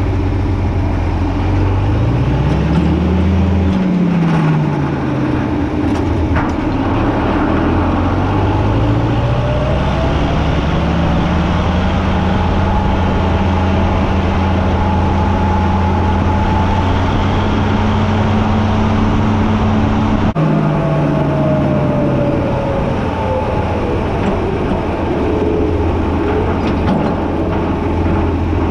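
John Deere 4620 tractor's diesel engine pulling the tractor down the road. The engine revs up and drops back early on, then climbs to a steady run. About twenty seconds in the throttle is pulled back and the engine note falls.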